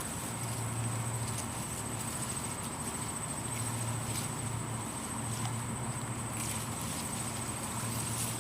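Steady high-pitched insect trill over a low, wavering background rumble.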